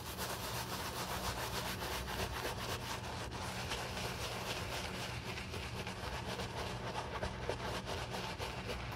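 Wooden-handled bristle shoe brush scrubbing a leather ankle boot in rapid back-and-forth strokes, working a cleaner into a wet foam on the leather.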